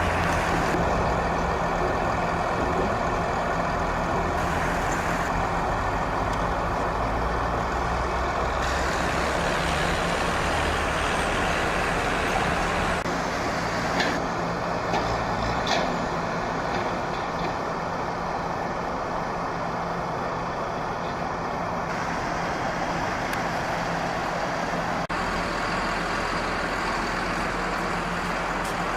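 A motor vehicle's engine running steadily, a low even hum, with a high steady whine that comes and goes several times and two brief knocks about halfway through.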